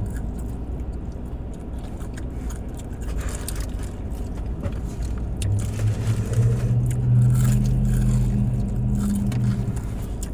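Crunching and chewing of crispy fried chicken wings, with scattered sharp crackles and rustles, over the steady low hum of a car engine idling that grows louder about halfway through.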